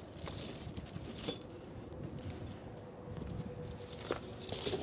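Steel tire chains jangling and clinking as they are draped and worked over a truck's drive tire, with a few separate sharp link clinks spread through the moment.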